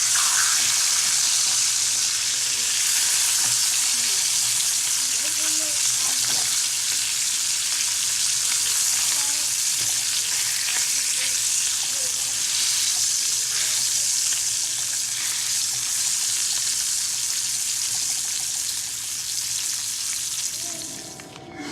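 Sausages frying in a pan: a steady sizzle that cuts off near the end.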